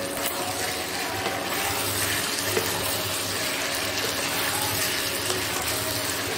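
Chilli chicken sauce sizzling and bubbling in a hot non-stick wok as a spatula stirs it, with light scraping and clicks of the spatula against the pan.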